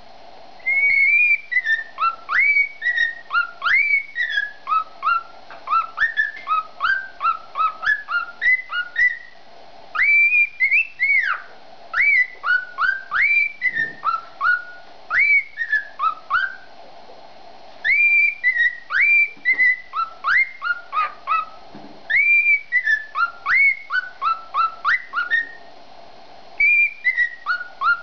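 Male grey cockatiel singing its whistled courtship song to a hen: quick phrases of sliding whistle notes that swoop up and down, repeated over and over. The song comes in runs of several seconds with short breaks between them.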